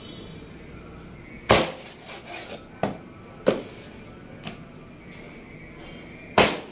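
Meat cleaver chopping raw chicken on a wooden cutting board: five sharp chops at uneven intervals, the first and last the loudest.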